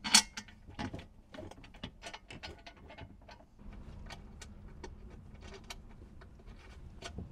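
Metal clinks, taps and light rattles of carriage bolts, washers and nylock nuts being fitted by hand through a metal panel into floor brackets, with a sharp knock just after the start. A low steady hum comes in about three and a half seconds in and fades near the end.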